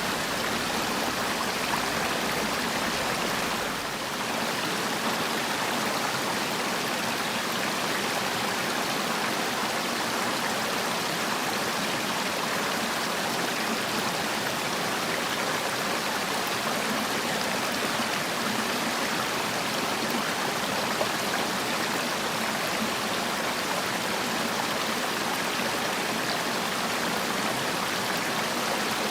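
Mountain valley stream, water rushing steadily with an even, unbroken hiss, dipping slightly for a moment about four seconds in.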